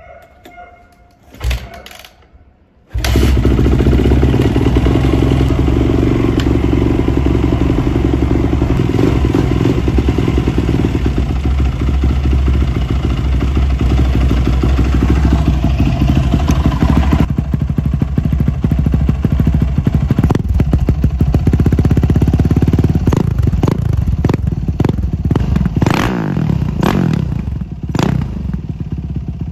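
2005 Yamaha YZ450F's 450 cc single-cylinder four-stroke engine, with an FMF silencer, being kick-started. There is a single thump from the kick, and about a second later the engine fires and runs loud and steady. Toward the end come several sharp throttle blips.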